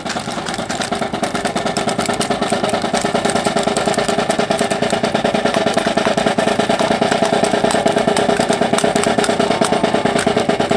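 Snare drums of a marching drill team's drum section playing a fast, steady cadence that grows gradually louder, with a steady drone underneath.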